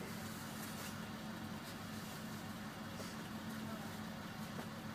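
School bus engine idling while the bus stands still, a steady low hum heard from inside the passenger cabin.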